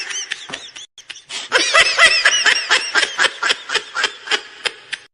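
Laughing sound effect: a person laughing in a string of quick, rhythmic pulses, breaking off briefly about a second in and then going on in a faster run.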